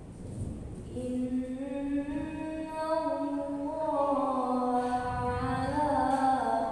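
A young girl chanting a Quran recitation in the melodic qiro'at style into a handheld microphone, starting about a second in with long drawn-out notes that slide from pitch to pitch and grow louder.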